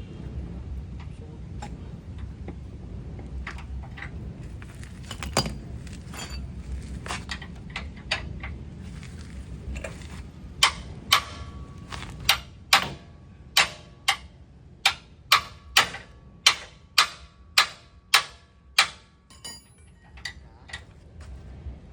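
A hammer striking metal on a car's suspension parts: a few scattered clinks, then from about halfway in a steady run of sharp ringing blows, about two a second, that stops shortly before the end.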